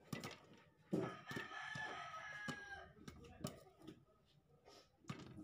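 Popcorn kernels popping now and then in a lidded stainless pan, sharp scattered pops as the batch nears its end. About a second in, a louder long crowing call sounds in the background for about a second and a half.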